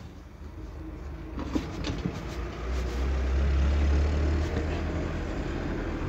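A low rumble that grows louder over the first few seconds and then holds steady, with a few faint clicks early in it.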